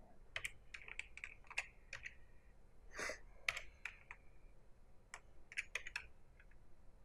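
Faint, irregular clicks of computer keyboard keys and mouse buttons, some coming in quick clusters.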